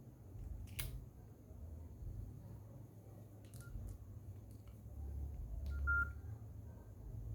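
Nokia N95 keypad tones: a few short single-pitch beeps as keys are pressed, with several sharp key clicks over a low handling rumble. The loudest beep comes about six seconds in.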